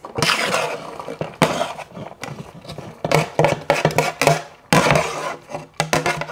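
Diced mirepoix and garlic cloves sliding off a metal sheet tray into a saucepan, with repeated bursts of scraping and clatter as the tray's edge rubs and knocks against the pot.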